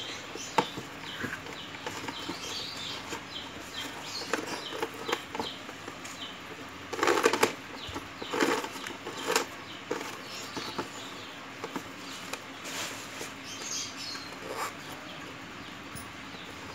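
Handling noise from twisting a two-core electrical wire over a cardboard box lid: scattered rustles, scrapes and small clicks, loudest about seven seconds in.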